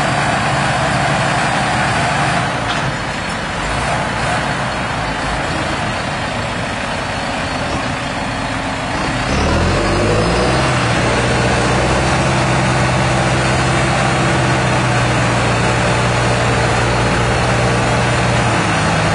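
Heavy farm tractors' six-cylinder diesel engines running in mud, one of them straight-piped. About nine seconds in, an engine revs up sharply and then holds at high revs, louder, as it works under load.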